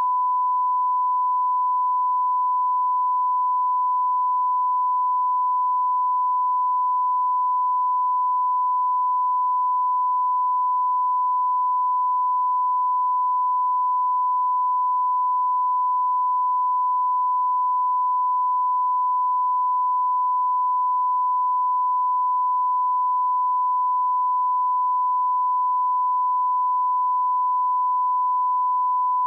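Steady 1 kHz sine test tone, the line-up reference tone that runs with colour bars at the head of a broadcast tape; it stops abruptly at the end.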